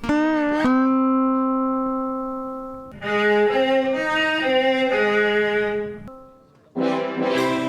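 Background music: a slow string-like melody with a long held note that fades, then a few stepping notes, and a fuller passage coming in near the end.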